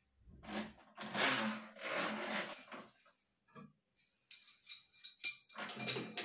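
Handling noise from fitting a flexible steel shower hose to a mixer tap: a stretch of rustling and scraping, then a run of small metallic clicks, clinks and knocks from about four seconds in.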